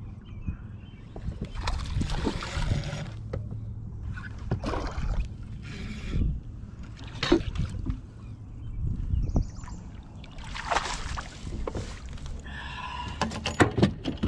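Irregular splashing and knocking around a small aluminium fishing boat while a hooked fish is played on a spinning rod, with a few sharp clicks near the end.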